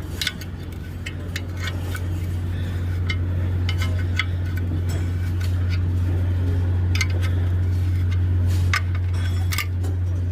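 Metal tools clinking and tapping on metal, scattered sharp clicks, over a steady low hum.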